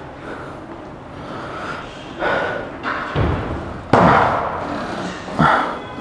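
Iron weight plates clanking as they are pulled off a plate-loaded leg press and set down for a drop set. The loudest is a sharp clank about four seconds in, with another about a second and a half later.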